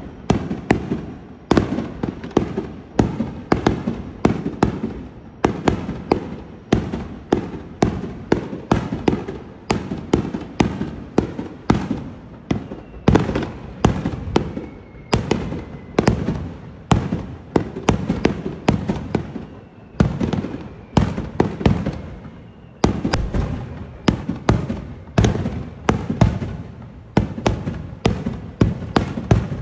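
Aerial fireworks bursting in rapid succession, a continuous barrage of sharp bangs, several a second, each trailing off in echo.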